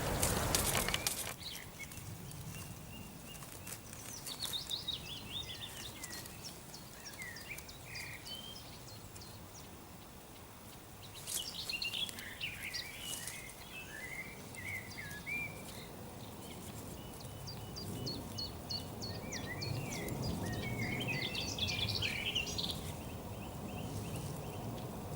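A songbird singing several long, quick warbling phrases a few seconds apart, over a low steady outdoor background. There is a brief rustle at the very start.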